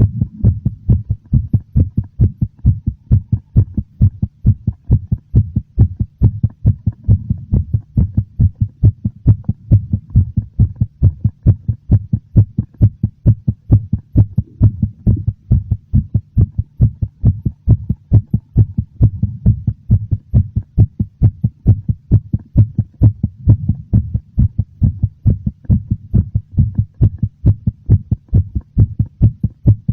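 Heartbeat, slightly fast and very noticeable: an even, unbroken rhythm of deep, dull beats.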